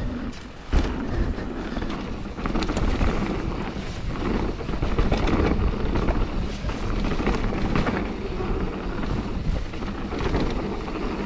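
Mountain bike rolling downhill over a rough, rooty trail: wind buffeting the camera microphone over tyre rumble and rattling knocks from the bike, with a sharp knock about a second in.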